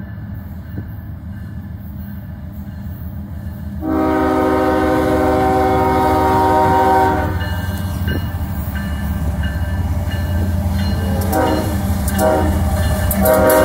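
Approaching CSX freight train led by a GE diesel locomotive. Its air horn sounds one long chord about four seconds in, then a few short blasts near the end, as the train nears the grade crossing, over the low rumble of the engine and wheels.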